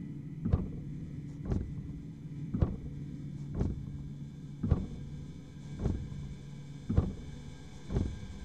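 Slow, evenly spaced low thuds, about one a second, over a steady low hum: a suspense soundtrack.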